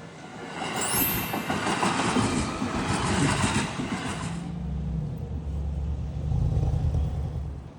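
Train passing over a level crossing. A loud rush of wheel-on-rail noise builds within the first second, gives way after about four seconds to a lower rumble, and cuts off near the end.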